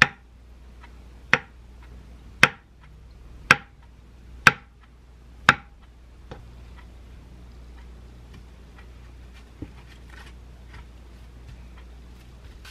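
Kitchen knife cutting down through a block of firm tofu and knocking on a wooden cutting board: six sharp strikes about a second apart, stopping about six seconds in, followed by quiet handling with one faint tap.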